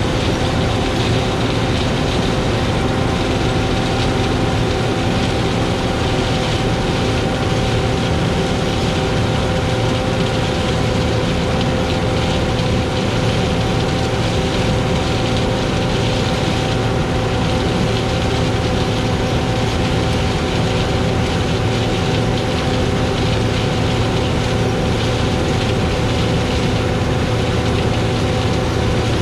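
Heavy diesel farm machinery running steadily at a constant pitch, with a steady mechanical whine above the engine rumble.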